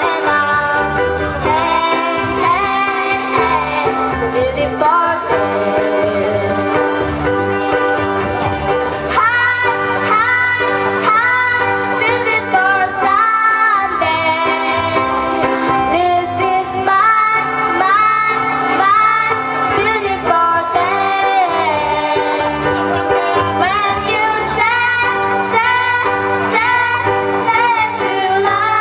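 Ukuleles strummed to accompany voices singing a song, performed as a group.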